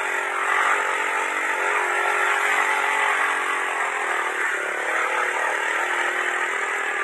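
Motorcycle engine running at a steady speed, its drone holding even in pitch and loudness.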